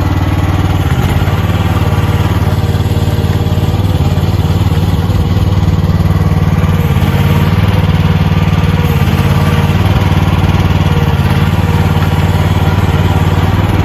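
Engine of a lever-operated machine with a blade running steadily close by, an even low throb with no revving.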